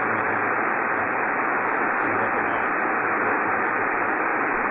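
Steady hiss of shortwave static from a Yaesu FT-1000MP Mark-V HF transceiver's receiver on the 75-meter ham band, heard in a pause between stations' transmissions. The hiss sounds thin and muffled, with no highs, narrowed by the receiver's voice filter.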